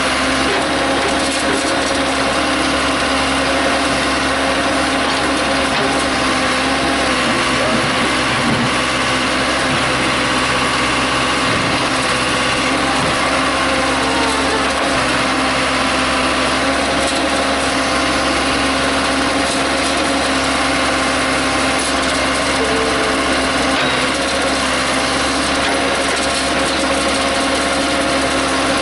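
Case 580C backhoe's engine running at a steady speed.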